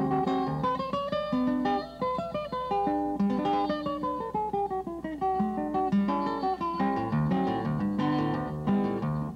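Solo classical guitar playing a choro: a quick line of separately plucked notes over bass notes, with a descending run of notes about three to five seconds in.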